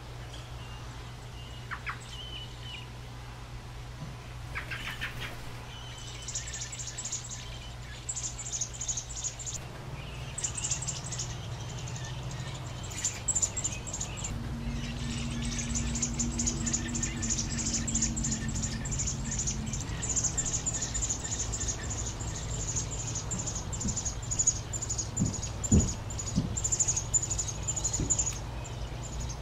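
American robin nestlings begging at the nest: a few calls early, then from about six seconds in a fast, unbroken series of high, thin peeps that carries on while the adult robin is at the nest. A low steady hum runs underneath.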